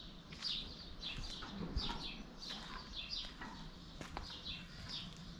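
Small birds chirping repeatedly outdoors, about three short, high, slightly falling chirps a second, with a few footstep-like clicks mixed in.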